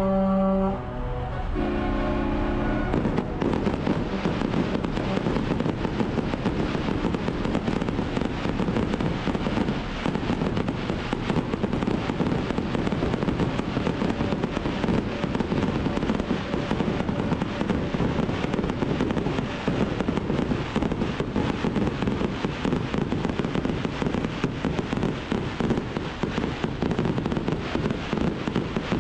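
Music ends about three seconds in, and a fireworks display follows: a dense, unbroken crackling and popping of bursting shells.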